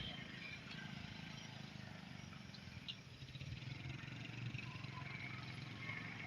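Faint steady low rumble, with a single small click about three seconds in.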